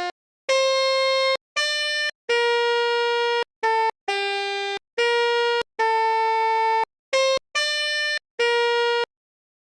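Basuri 'telolet' multi-tone bus air horn playing a tune of about ten held notes of changing pitch and length, with short breaks between them. It falls silent for the last half-second or so.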